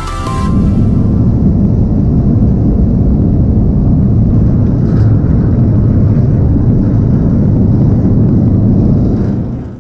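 Steady low rumble of deck ambience on the open working deck of an anchor-handling vessel at sea, fading out near the end.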